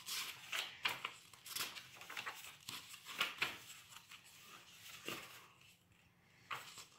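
Pages of a book being flipped by hand: a quick, irregular run of soft paper flicks and rustles, with a short lull near the end.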